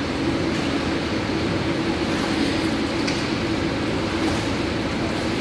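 Steady mechanical hum of an indoor pool room's air handling, with a constant low tone under it and a few faint splashes of water.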